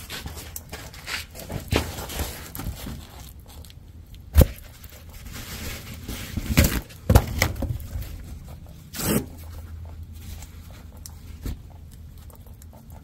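Rustling, scraping and several sharp knocks from someone shifting about and handling things under a truck, over a low steady hum; the loudest knock comes about four seconds in.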